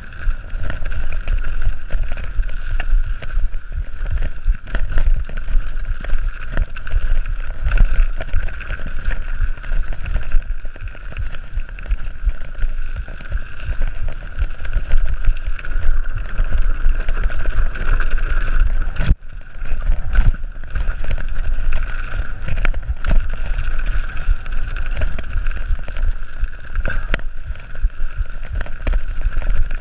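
Mountain bike riding fast down a dirt forest trail, heard from a camera on the bike or rider: wind buffeting the microphone over tyre noise, with the bike knocking and rattling over bumps and roots. The sound drops out briefly about two-thirds of the way through.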